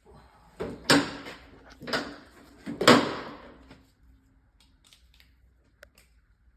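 Click-type torque wrench clicking off three times, about a second apart, as the gearbox case bolts reach their set torque; faint small tool clicks follow.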